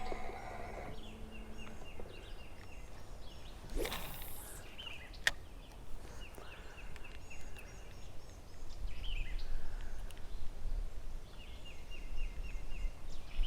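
A bird outdoors calling a rapid rattling series of short notes three times, a few seconds apart. A steady hum runs for the first two seconds, there is a swish about 4 s in, and a sharp click a second later.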